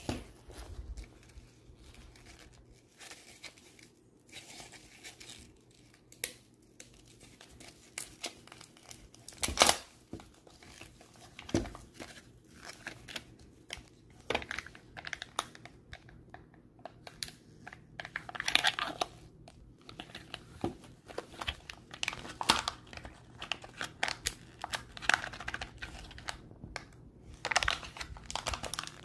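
Kinder Joy eggs being unwrapped by rubber-gloved hands: the wrappers crinkle and tear, and the thin plastic seal is peeled off an egg half. The sound comes as irregular crackles and sharp clicks, with one loud click about a third of the way in. It gets busier in the second half.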